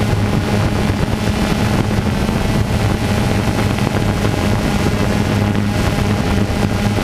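A motor running steadily with a low, even hum, with wind rushing over the microphone.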